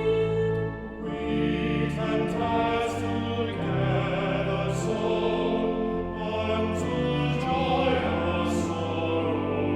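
Choir singing a hymn in held, slow-moving notes over a steady instrumental accompaniment.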